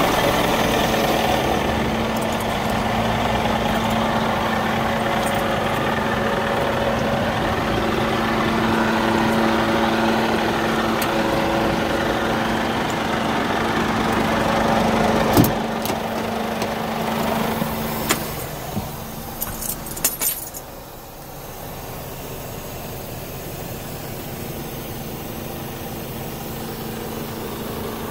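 Scania G440 truck's diesel engine idling steadily, with a single sharp click about halfway through and a cluster of clicks and knocks around two-thirds of the way in. After those, the engine sounds quieter and duller.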